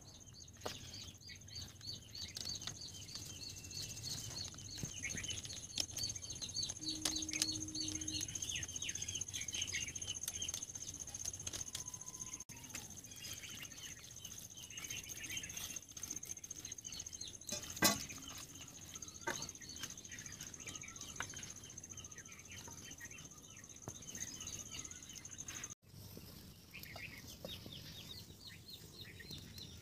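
Many small birds chirping and twittering with no let-up, over a steady high-pitched whine that cuts off near the end. One sharp knock about two-thirds of the way in.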